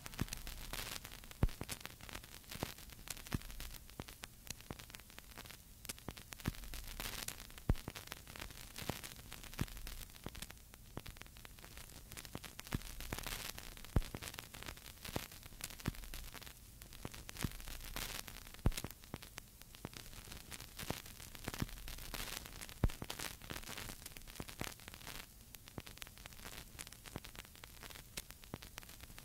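Blank stretch of cassette tape played on a Technics RS-TR373 deck: steady tape hiss over a low hum, with scattered sharp clicks every few seconds.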